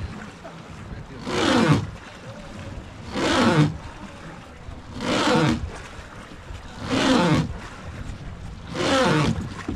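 Rowing strokes on a wooden river boat, about one every two seconds: each stroke is a rush of water with a falling creak from the oar.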